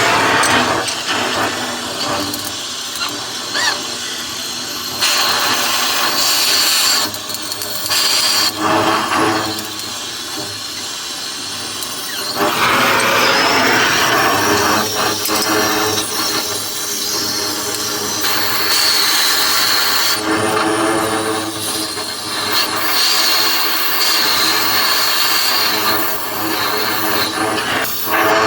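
Gas cutting torch running with a loud hiss as it cuts slits down the wall of a boiler tube, so the tube can be collapsed and released from the tube plate. The level and tone shift abruptly several times.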